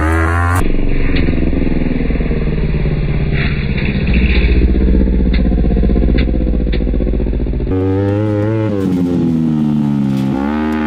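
Off-road shifter buggy's engine running hard under throttle on a run at a gravel-pile jump, its pitch climbing as it revs up near the start and again near the end. A few sharp knocks come about halfway through.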